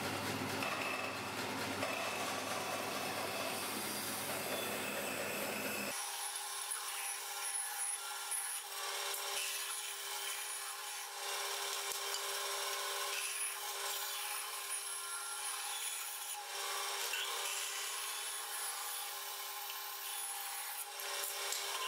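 Bandsaw running and ripping strips of wood: a steady motor hum and high blade whine under the rasp of the cut. A deep rumble drops out about six seconds in.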